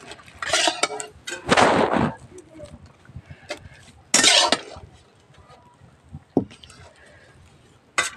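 Metal ladle scraping and clinking against a steel kadhai and a steel bowl as boiled bitter gourd pieces are scooped out and dropped in, in a few short bursts of scraping with single clinks between them.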